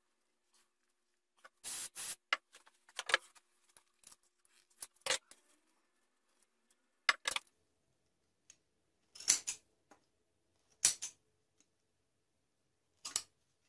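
A string of short, sharp hissing bursts from an aerosol spray-adhesive can fixing the rope wrapped around a cat scratching post, and near the end a snip of large shears cutting through the rope.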